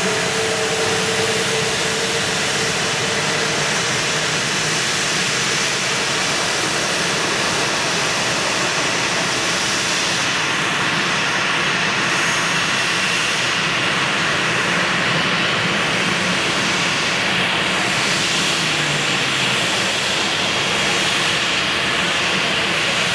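Turbofan jet engines of a taxiing Boeing 737-800 running at low taxi thrust: a steady rushing noise, with a high whine that comes up about halfway through.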